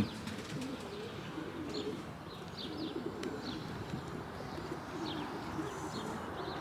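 Pigeons cooing repeatedly, low and warbling, with short, faint high chirps of small birds scattered through.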